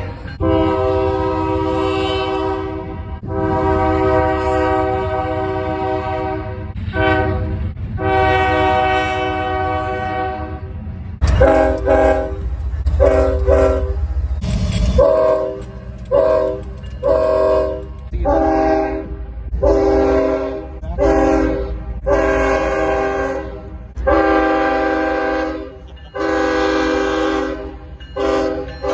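Union Pacific locomotive air horns sounding a chord in a series of blasts: three long blasts of about three seconds each at first, then many shorter blasts about a second apart, over the low rumble of the train.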